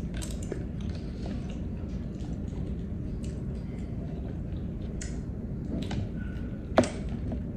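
Close-up mouth sounds of chewing balut (boiled fertilised duck egg), with scattered small clicks of metal spoons on eggshells and one sharper click near the end, over a steady low hum.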